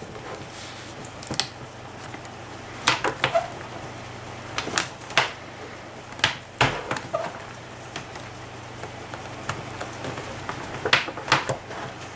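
Scattered sharp clicks and knocks, some in quick clusters, from handling a Chromebook with broken hinges, over a low steady hum.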